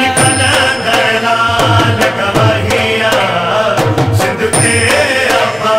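Sindhi manqabat (Shia devotional song) sung by male voices over a steady percussion beat.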